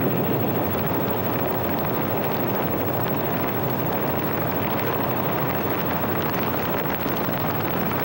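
Gasoline fire burning, a steady, dense rushing noise that begins suddenly and holds even throughout; it is ignited fuel vapour from a pan of gasoline used for cleaning.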